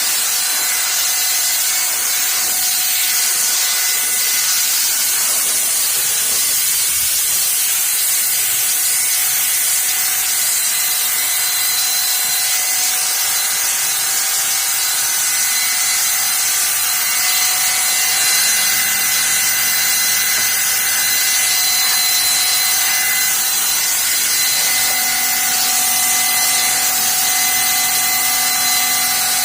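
Sun Joe SPX6001C-XR 40-volt cordless pressure washer running continuously, its water jet spraying with a loud, steady hiss over a few thin steady high tones from the machine.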